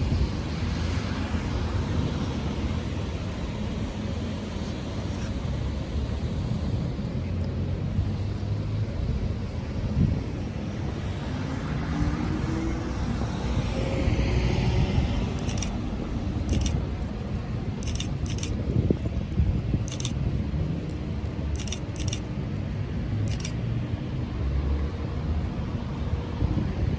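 Steady low rumble of vehicle noise, with a scatter of sharp clicks through the second half.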